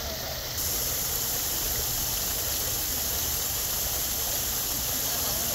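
Water pouring from an artificial rock waterfall into a swimming pool: a steady rushing splash that gets louder about half a second in.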